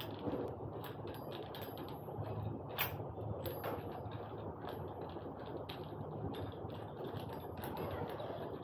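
Irregular light clicks and taps of plastic fan parts being handled and opened, with one sharper click about three seconds in.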